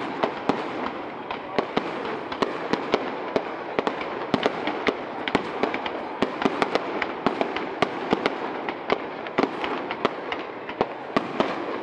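Aerial fireworks bursting overhead: a rapid, irregular string of sharp bangs and cracks, several a second, over a steady background of noise.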